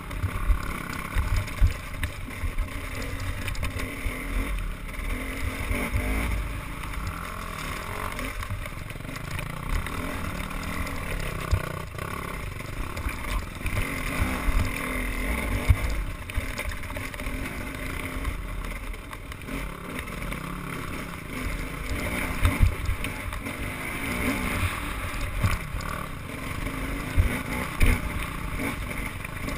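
Small motorboat engine running steadily, with wind buffeting the microphone in irregular low gusts.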